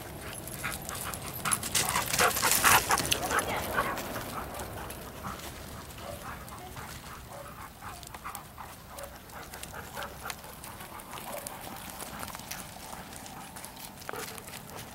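A pack of dogs in an outdoor dog run: occasional barks and yips over the crunch of paws and footsteps on wood chips. There is a busy, louder flurry about two seconds in.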